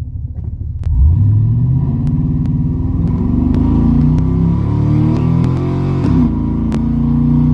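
The 2003 GMC Sierra's V8 engine, heard from inside the cab, accelerating hard from a standstill under a timed Dragy run. It idles for about a second, then the revs climb steadily. Near six seconds the pitch drops at an upshift, then it climbs again.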